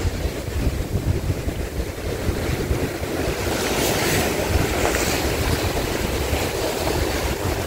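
Wind buffeting the microphone with the wash of sea waves around a small fishing boat. The noise swells for a second or two about four seconds in.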